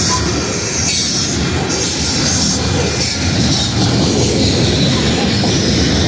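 Coal hopper cars of a freight train rolling past at steady speed: a continuous rumble of steel wheels on rail, with a high hiss that comes and goes.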